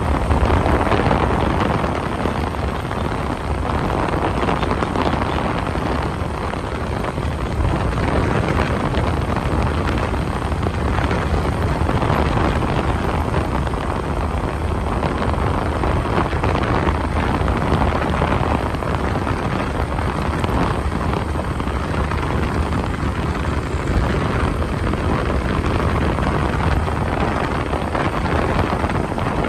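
Steady road noise of a vehicle driving along a concrete road, tyres on the pavement mixed with a low rush of wind.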